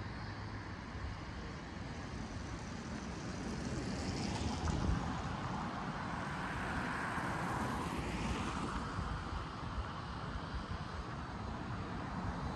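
City street traffic: a steady hum of cars on the road, with one vehicle passing more loudly, swelling and fading about halfway through.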